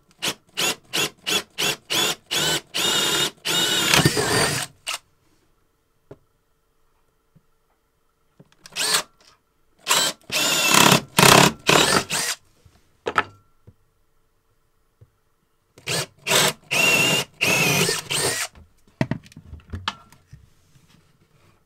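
Cordless drill with a paddle bit boring through a painted 3/4-inch bulkhead, three holes in three bouts. Each bout starts with short stop-start pulses of the trigger, then the drill runs steadily for a couple of seconds as the bit cuts through.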